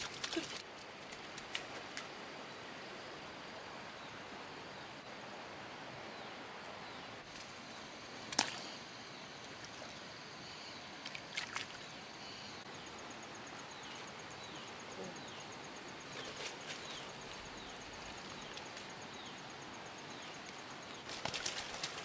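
Stream water running steadily, with a few sharp knocks, the clearest about eight seconds in. A high, fast-pulsing insect trill and some short falling chirps join in the second half.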